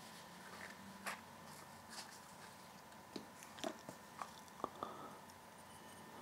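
A handful of faint clicks and taps as a Tiffen UV filter's hinged plastic case is opened and the metal-ringed filter is lifted out and handled.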